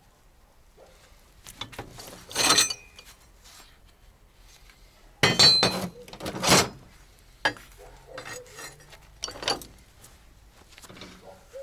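Hard objects, metal among them, being handled and set down: irregular clinks, knocks and clatters. The loudest come in a cluster about halfway through.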